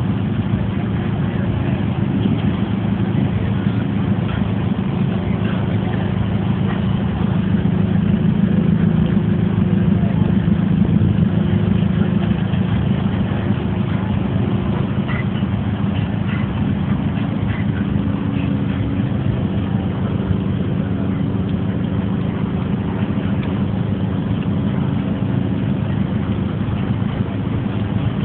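Car engine running steadily at low revs, with a slight swell in level about a third of the way in.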